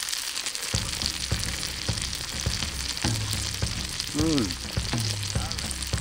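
Bacon-wrapped camembert sizzling in hot oil in a cast iron skillet: a steady frying hiss with scattered small pops. About four seconds in, a short rising-and-falling tone stands out briefly.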